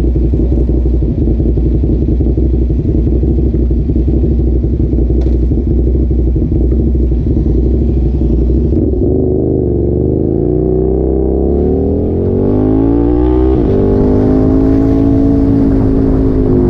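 An engine running steadily with a rapid throb. About halfway through its pitch climbs as it revs up, drops suddenly a few seconds later, then climbs again and holds.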